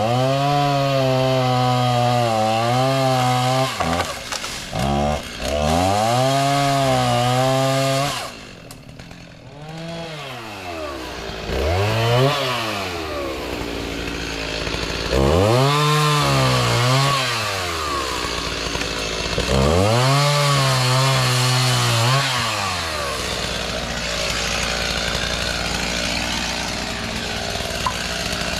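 Gas chainsaw cutting through oak branches. The engine revs to full throttle in several long bursts, its pitch wavering as the chain bites, drops back between cuts, and settles to a low idle for the last few seconds.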